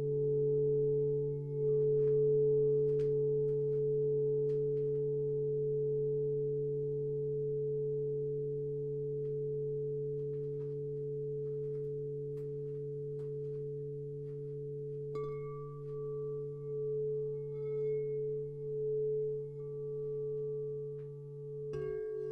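Singing bowls ringing in several steady, overlapping tones, one of them low. Another bowl sounds about 15 seconds in, its tone pulsing, and a further one sounds just before the end.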